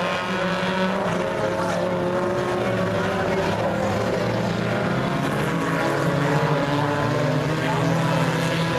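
Several U-car class stock cars racing on a dirt oval, their engines running hard together, several pitches overlapping and slowly rising and falling as the cars go through the turns.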